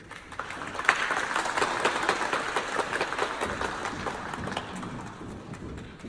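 Audience applauding, building within the first second and gradually thinning toward the end.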